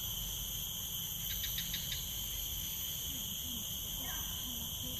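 Steady chorus of insects droning in several high-pitched bands, with a quick run of about five chirps about a second and a half in.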